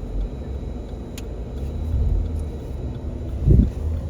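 Low rumble of street traffic, with a brief louder thump about three and a half seconds in.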